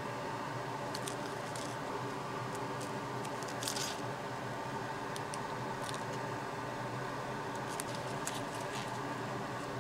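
Soft rustles and light taps of a gloved hand laying shredded ginger onto a ceramic plate, a handful of brief handling sounds with a slightly louder one a little before the middle, over a steady background hum.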